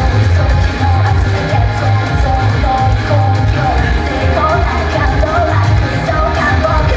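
Live idol pop song played loud over a venue sound system, with a heavy pulsing bass beat, sung vocals and yelled calls.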